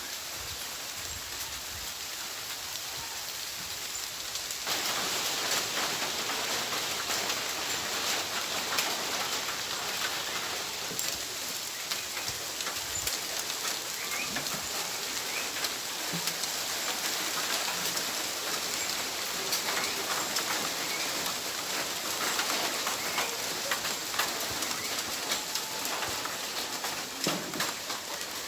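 Rain falling steadily, a dense hiss of drops pattering on surfaces. It suddenly gets louder about five seconds in. A few faint bird calls come through.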